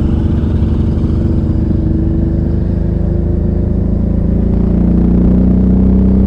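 Suzuki V-Strom DL650's V-twin engine running under way, a steady drone. About four and a half seconds in, its pitch rises a little and it grows louder.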